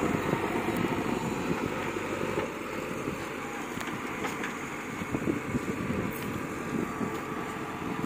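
JCB 3DX backhoe loader's diesel engine running steadily as the machine drives slowly across rough ground, the sound easing slightly a few seconds in.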